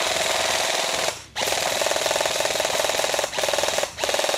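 Airsoft M4 electric rifle firing on full auto: a fast, steady rattle of rapid shots, broken by a short pause about a second in and two brief gaps near the end.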